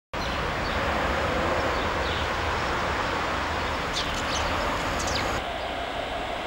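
Steady city street traffic noise, with a few short high chirps about four and five seconds in. A little after five seconds the sound changes abruptly, turning duller with a steady hum.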